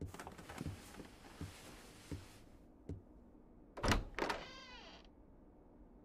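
Footsteps crossing a room, a soft step about every three-quarters of a second, then about four seconds in a door latch clunks twice and the door gives a short creak that slides down in pitch.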